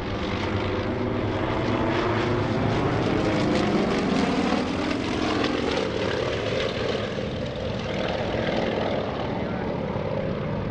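Three Yakovlev Yak-52TW aerobatic planes flying overhead in formation, their nine-cylinder radial engines and propellers droning steadily, with the engine pitch sliding down about midway.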